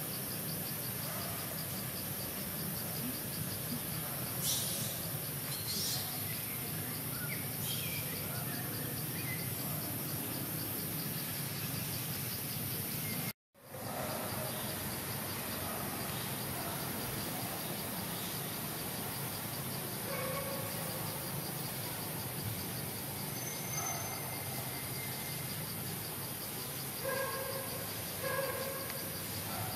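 Forest ambience: a steady chorus of insects with a fast pulsing high trill, with scattered short bird chirps. The sound drops out abruptly for a moment about halfway through.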